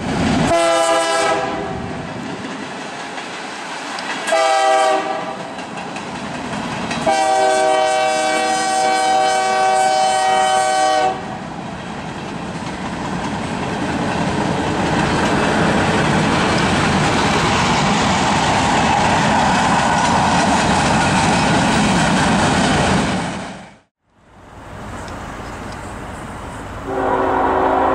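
Freight locomotive air horn sounding two short blasts and then a long one of about four seconds, followed by the steady rumble and wheel clatter of the freight train rolling past. After an abrupt break, another train's rumble is heard, and a lower-pitched locomotive horn starts sounding near the end.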